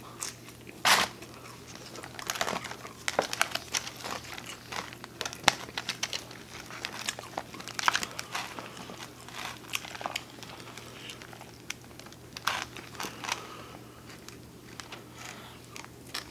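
Close-miked eating sounds: chewing pizza, then a plastic fork tossing and picking up crisp romaine lettuce in a plastic bowl, giving irregular crackles and clicks.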